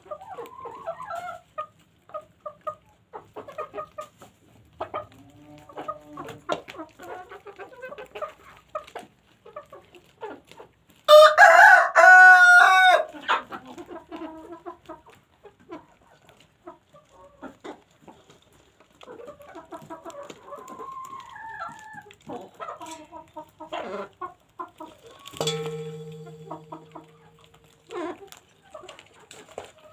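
Hens clucking softly and pecking at a pile of fresh greens, with many short calls and pecking clicks. About eleven seconds in, a rooster crows loudly for about two seconds.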